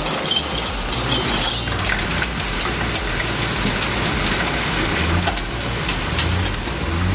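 Heavy vehicle engine running, with scattered clanks and knocks over it.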